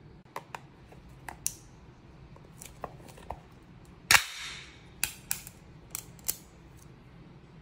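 Ring-pull tin of wet cat food being opened by hand: a few small clicks as the tab is worked up, then a loud crack about four seconds in as the lid's seal breaks, with a short hiss after it. Several sharp metallic snaps follow as the lid is peeled back.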